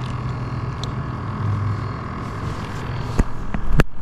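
Boat motor running steadily: a low hum with a thin, steady whine above it. A few sharp knocks come near the end.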